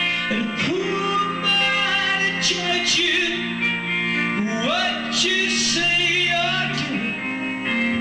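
Live band music with a male lead vocal: a singer holding and bending long notes over the band's accompaniment.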